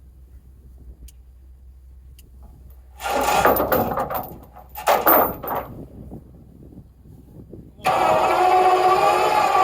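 An engine turned over in a few loud bursts, then catching about eight seconds in and running steadily.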